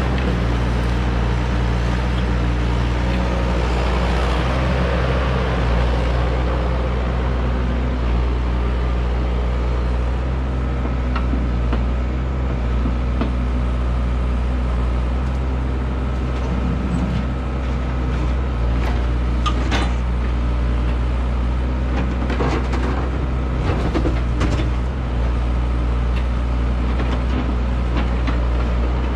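A large engine running steadily at a constant speed, with scattered light clicks and knocks over it.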